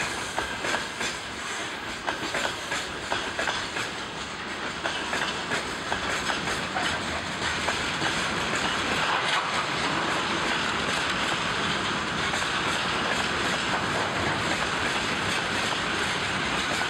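Freight wagons of a long train rolling past on the rails, their wheels clicking over the rail joints. About halfway through the clicks give way to a steadier, slightly louder rolling noise.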